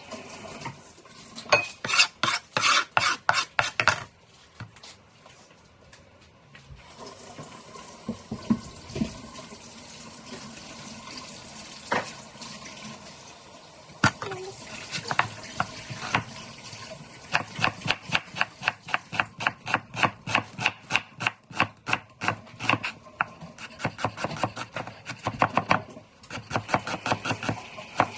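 Stirring and mixing in a bowl: quick, rhythmic strokes of roughly three to four a second, with a stretch of steady hiss in the middle.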